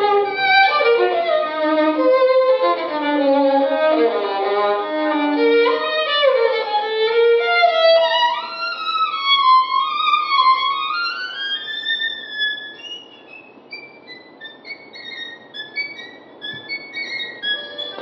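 Solo violin playing fast runs of notes low in its range, then climbing to higher, held notes with slides between them, growing quieter and sparser near the end.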